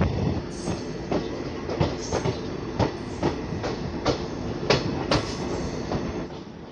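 Wheels of a DEMU passenger train clicking over track joints as it runs into a station, heard from the coach doorway over a steady rolling rumble. The clicks come unevenly, a few a second, and the running noise grows quieter toward the end.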